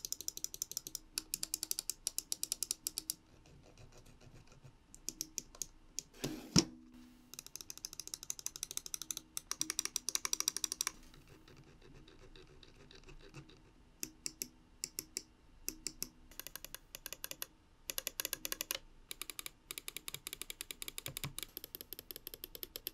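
Rapid bursts of small mechanical clicks from a G-Wolves Skoll Mini gaming mouse, its Omron 20M main-button switches and notched scroll wheel, stopping and starting every few seconds. A single louder knock comes about six and a half seconds in.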